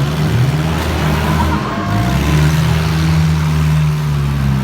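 Demolition derby car engines running and revving, a steady low engine note that rises and falls slightly.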